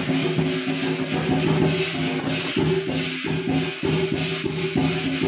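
Chinese lion dance percussion playing continuously: bright, rapid cymbal clashes over ringing gong tones and drum beats.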